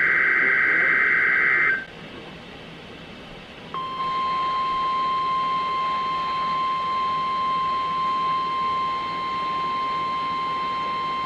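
NOAA Weather Radio test signal heard through a weather radio receiver. The last loud SAME digital header burst ends about two seconds in. After a short stretch of radio hiss, the steady 1050 Hz warning alarm tone starts about four seconds in and holds.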